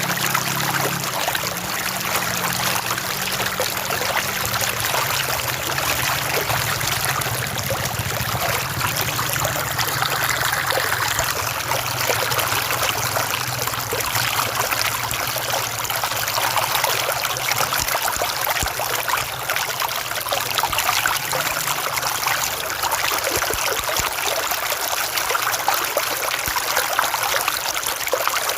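River water flowing steadily, a continuous rushing, trickling stream.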